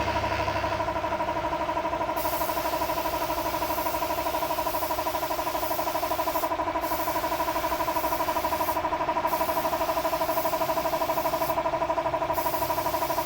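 A motor runs steadily with a fast pulsing hum. A high hiss joins about two seconds in and breaks off briefly three times in the second half.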